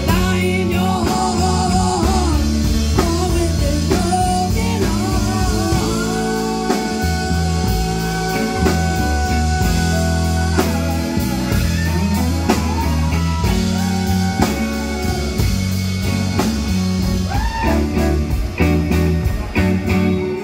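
Live band performing a song: a woman singing over drums, electric bass, electric guitar and an amplified harmonica playing long held notes.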